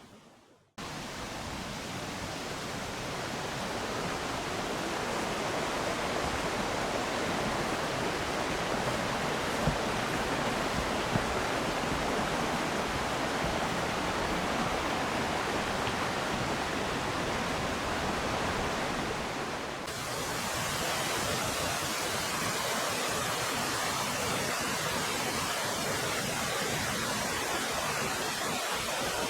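Yudaki waterfall's water rushing down the rock face as a steady, even roar, which shifts slightly in tone about two-thirds of the way through as the view changes.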